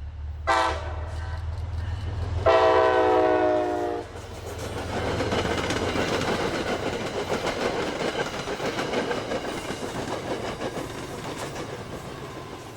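Diesel-hauled train sounding its horn, a short toot and then a longer blast of about a second and a half, over the low engine rumble. The train then passes close by with loud rolling wheel-on-rail noise that slowly fades.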